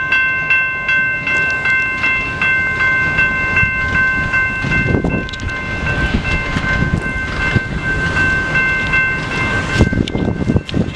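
General Signals type 2 electromechanical railroad crossing bell ringing continuously, about two strikes a second, with the crossing active while a train stands on it. Bursts of low rumbling noise come up around the middle and near the end.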